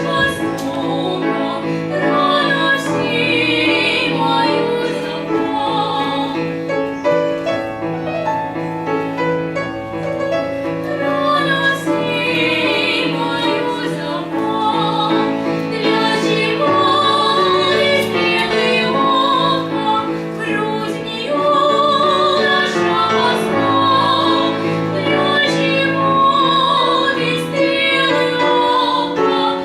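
Female voice singing in classical operatic style with vibrato, accompanied by piano.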